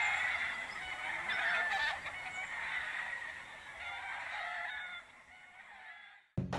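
A flock of birds honking and calling over one another, thinning out near the end. A brief gap, then drum-led music starts just before the end.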